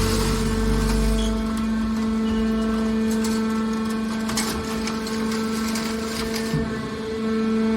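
Mobile scrap metal baler's machinery running with a steady, even hum. A deep low rumble drops away about a second in, and a few short knocks and clicks come in the middle and near the end.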